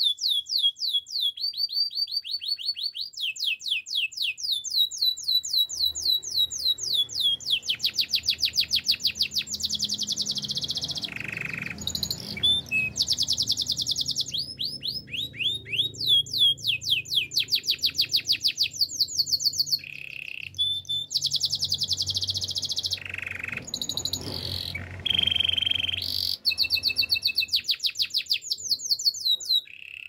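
Domestic canary singing a long unbroken song: fast rolling trills of rapidly repeated high notes, switching to a new trill every few seconds.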